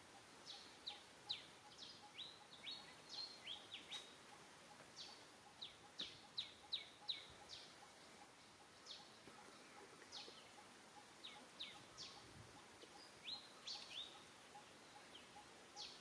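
Small birds chirping: many short, high, quick down-slurred chirps in irregular clusters, with a faint fast, even ticking underneath.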